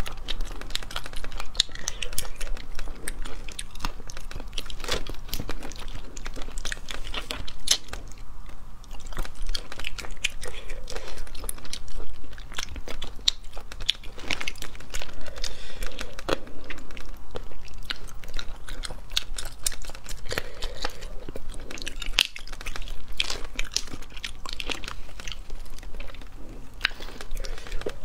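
Close-miked eating of small cooked sea snails: a scatter of sharp little clicks and taps as the shells are handled and the meat is picked out with a toothpick, with chewing.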